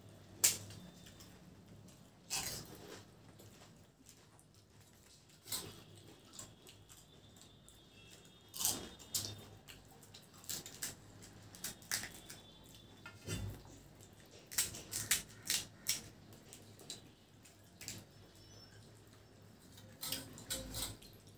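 Crisp phuchka (pani puri) shells being cracked open with fingers and crunched in the mouth: irregular short sharp cracks, a second or a few seconds apart, in small clusters around the middle and near the end.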